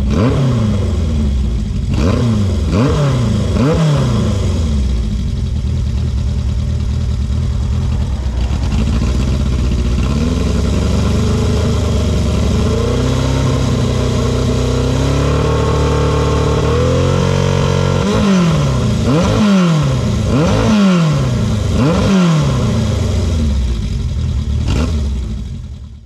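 Honda CB750 Four's air-cooled inline-four engine revved with a series of quick throttle blips, settling briefly to idle. The revs then climb in steps and are held for several seconds before dropping back into more quick blips. The sound cuts off abruptly near the end.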